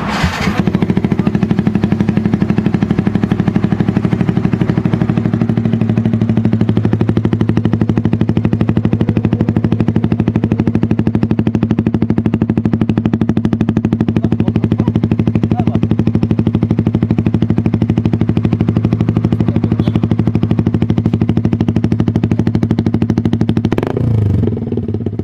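Motorcycle engine idling steadily through an Austin Racing aftermarket exhaust, with an even, rapid exhaust beat. The sound changes briefly near the end.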